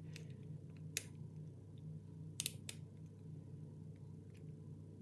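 Faint metallic clicks and ticks of a half-diamond hacksaw-blade pick working the pins of a six-pin Carl F euro cylinder lock under light tension, with a sharper click about a second in and two more together about halfway through.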